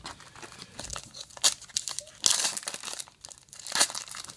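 Foil trading-card pack wrapper being crinkled and torn open by hand: a run of sharp crackles and rips, the loudest about a second and a half in, for a moment after two seconds, and again near the end.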